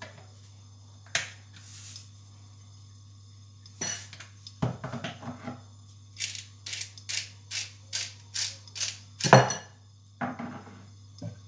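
A hand pepper mill being twisted to season the beaten eggs: a run of dry crunching clicks, about three a second for some three seconds, ending in a louder knock, after a few scattered knocks earlier on, over a steady low hum.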